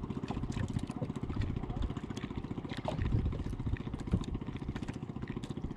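Small boat engine running steadily with a fast, even pulsing.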